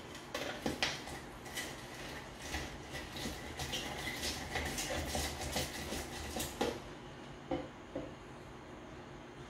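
Lime half twisted and pressed on a plastic hand reamer juicer: an irregular run of scraping, clicking strokes for about seven seconds, then two light knocks.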